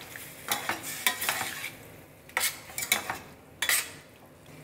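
Slotted stainless-steel spatula scraping and stirring a wet paneer-and-vegetable masala in a stainless-steel pan: a run of about eight uneven scrapes, with a brief pause about halfway through.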